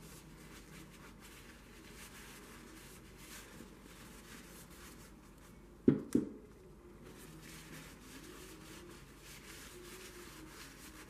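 Faint room tone, broken about halfway through by two sharp knocks about a third of a second apart.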